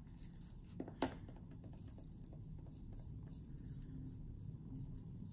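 Quiet handling sounds: a sharp click about a second in, then faint light rubbing and small ticks as a black nitrile-gloved finger spreads thick lip pigment on skin.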